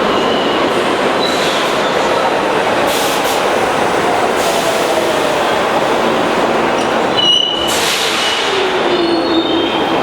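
New York City subway train pulling into the station: a loud, steady rumble with a motor whine falling in pitch as it slows, and short high wheel squeals near the end.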